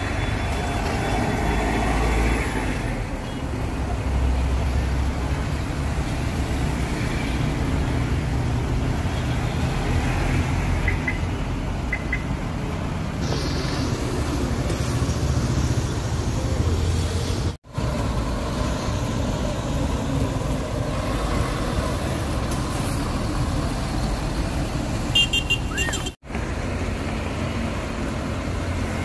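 Diesel engines of large sleeper coaches running and pulling away amid steady road traffic. The sound drops out suddenly for an instant twice, in the middle and near the end.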